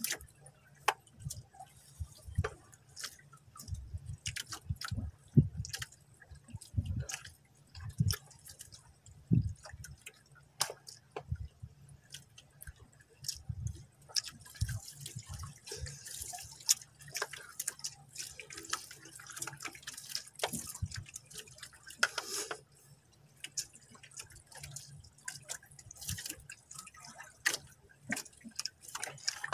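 A spoon clicking and scraping in a plastic food container during a meal: an irregular run of small taps and scrapes.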